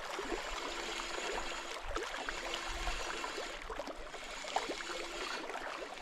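Steady rushing of water, with small scattered clicks and a faint hum that comes and goes.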